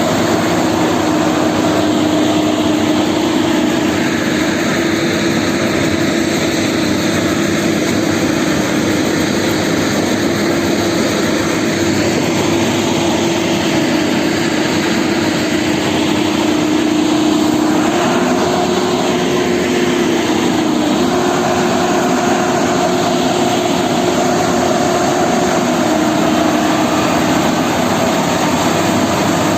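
Heavy diesel engines of an excavator and a loaded Shaktiman truck running steadily under load as the excavator pushes the truck, a loud even drone. The pitch steps up a little about eighteen seconds in and drops back near the end.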